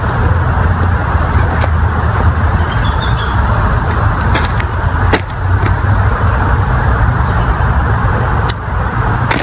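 Hands sifting and breaking up loose potting soil and roots on a plastic tarp, with a few sharp clicks, over a steady low outdoor rumble. An insect chirps faintly in short, evenly spaced high pulses.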